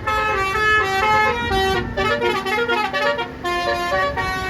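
Bus basuri telolet horn playing a fast melody, its notes changing several times a second, over a low rumble.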